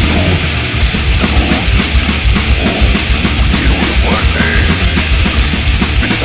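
Heavy metal music with distorted guitars and fast, dense drumming, loud and unbroken.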